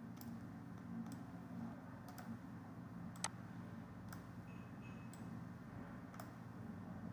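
Computer mouse clicking about eight times at irregular intervals, the loudest about three seconds in, over a faint steady low hum.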